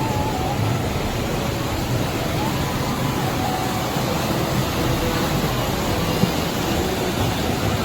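Steady rush of floodwater, an even unbroken roar of flowing water.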